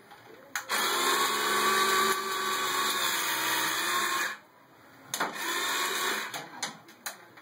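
Small electric motors of a remote-control amphibious toy vehicle whirring as it is driven: one run of about three and a half seconds, a pause of about a second, then a shorter run and a few brief bursts.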